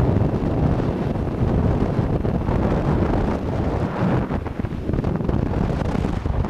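Wind blowing across the microphone: a loud, uneven low rumble.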